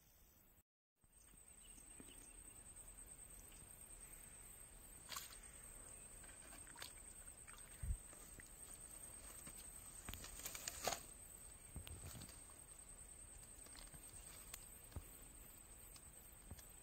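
Near silence: faint outdoor ambience with a steady thin high-pitched tone and a few soft knocks and rustles, the sharpest a low thump about eight seconds in and a small cluster around eleven seconds.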